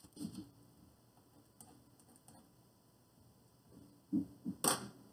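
Faint small ticks and taps of a pen marking on paper at a desk, with a sharper click a little before the end.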